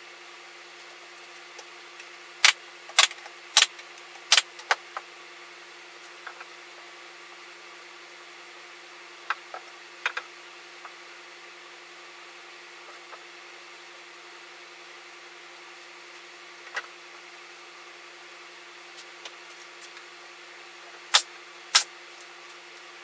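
Scattered sharp knocks over a steady low hum: a quick cluster of four or five about two to five seconds in, a few more around ten seconds, one near seventeen seconds, and two close together near the end.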